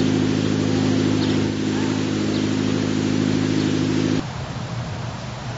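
An engine running steadily at a constant speed, which cuts off abruptly about four seconds in, leaving a quieter low hum.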